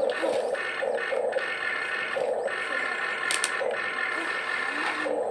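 Huina 1592 RC excavator's electric motors and gearboxes whirring in short, irregular bursts as the boom and bucket are worked.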